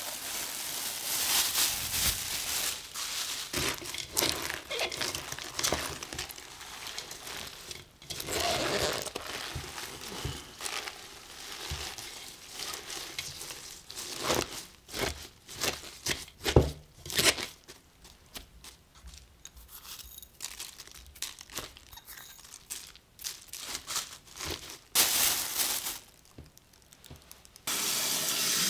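Plastic wrap crinkling as it is pulled off a bowl of salted chili pepper leaves, then hands tossing and turning the wilted leaves in the bowl with irregular rustling and crunching. Near the end a tap starts running steadily into the bowl to rinse them.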